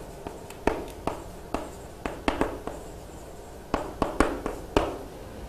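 Handwriting: a run of irregular sharp taps and short strokes as letters or a figure are written, pausing briefly about halfway through.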